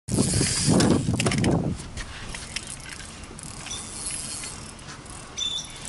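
Spinning reel cranked with a hooked fish on the line, its gears and drag giving a rapid ratcheting click. It is loudest for about the first two seconds, then fainter, with scattered clicks.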